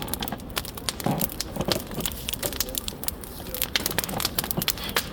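Bonfire crackling, with many sharp, irregular snaps and pops.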